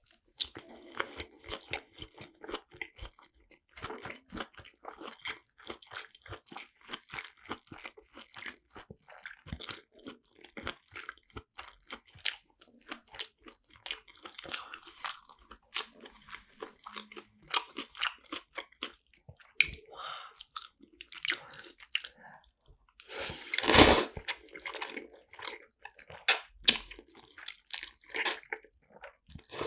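A person chewing and biting food close to the microphone: many small, irregular crisp clicks and wet smacks. About two-thirds of the way through comes one louder burst of noise lasting under a second.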